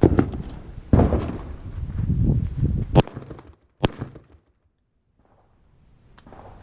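Gunshots at a shooting range: two shots about a second apart, then two sharper cracks about three and four seconds in. The sound drops out almost entirely for a second or two before faint background returns near the end.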